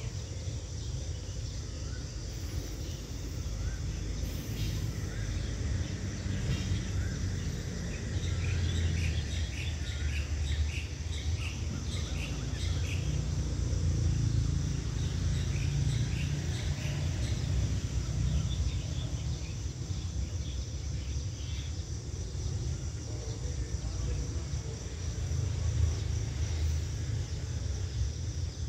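Outdoor dawn-chorus ambience: birds chirping, with a flurry of short calls in the middle, over a steady high trill of insects and a constant low rumble.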